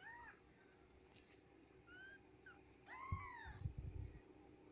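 Newborn Japanese Bobtail kittens mewing faintly: a short high cry right at the start, a couple of small squeaks around two seconds in, and a longer rising-then-falling mew about three seconds in. Low thumps sound during and just after the long mew.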